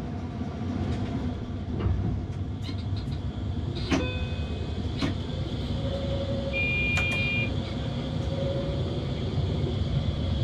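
New rack-railway railcar running, heard from inside its driver's cab: a steady low rumble with scattered clicks and a sharp knock about four seconds in. A short high electronic beep sounds a little past the middle.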